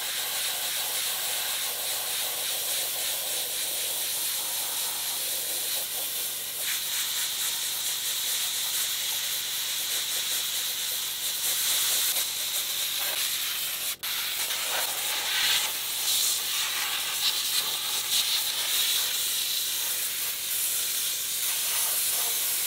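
Sandblaster gun blasting coal slag grit with compressed air against the rusty bare-steel underside of a truck hood: a steady, dense hiss, with one momentary gap near the middle.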